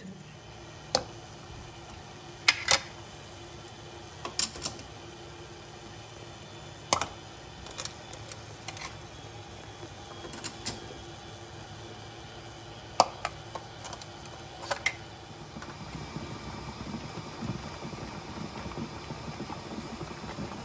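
Glass jars with metal lids clinking and knocking against each other and the aluminium pot as they are set in to be boiled: about a dozen sharp, irregular clinks over a steady low hum. Near the end a rougher, low rumbling noise comes up.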